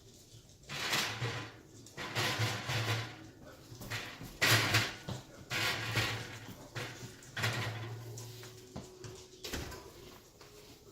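Metal oven rack scraping and sliding on its runners as it is pulled out and handled: a series of short scrapes, with a sharp knock near the end.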